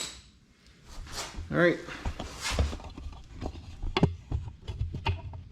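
A few sharp, separate clicks and knocks of hand tools and metal engine parts being handled, while a man says "all right" once.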